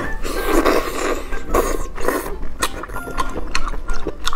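Close-miked eating of whole small octopus: wet chewing, sucking and lip-smacking, with many irregular sharp clicks and squelches as the tentacles are bitten and pulled apart.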